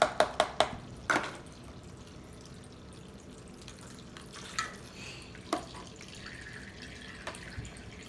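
Plastic toy cups and dishes knocking against each other and a plastic toy sink: a quick run of clicks in the first second or so, then a few scattered knocks. A faint trickle of water from the toy sink's faucet runs underneath.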